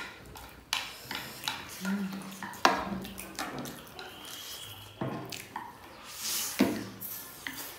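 Noodles being slurped and chewed, with chopsticks clicking and scraping against plates. The longest, loudest slurp comes a little over six seconds in.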